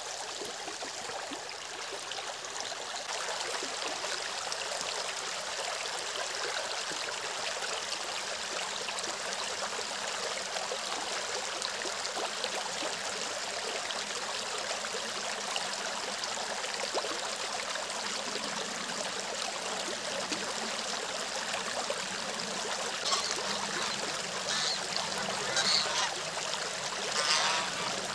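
Shallow stream running steadily over stones, with a few short honks from domestic geese near the end.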